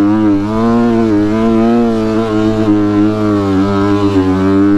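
Dirt bike engine running under way at a fairly steady speed, its pitch rising and falling gently with the throttle.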